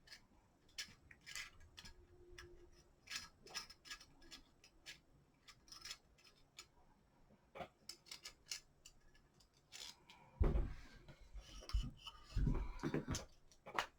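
Light metallic clicks and scrapes as the screws of a quad rail on a pistol are backed out with a hex key and handled. Louder knocks and handling noise come about ten seconds in and again near the end.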